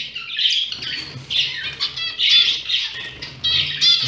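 Many small cage birds chirping and chattering continuously, with sharp repeated call notes about halfway through and near the end, and the flutter of wings as a fledgling Bengalese finch is chased inside its cage.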